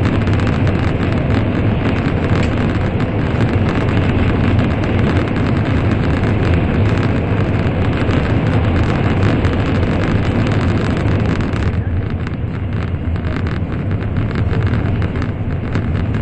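Shinkansen running at speed through a tunnel, heard from inside the passenger car: a steady, loud rumble and rushing roar. About three quarters of the way through the hiss thins as the train comes out into the open.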